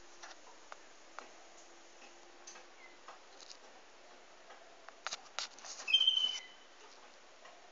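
Waterslager canary in its song cage: scattered faint clicks and taps, then about six seconds in a short, loud phrase of clear song notes.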